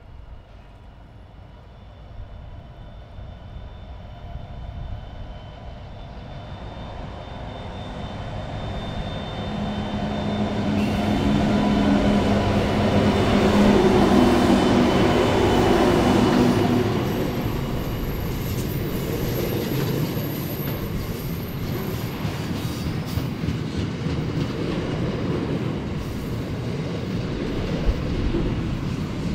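Diesel-electric freight locomotives approaching and passing close, their engines loudest about halfway through, then a long rake of box wagons rolling by with steady wheel noise and clickety-clack. A thin high wheel squeal comes in just after the locomotives pass.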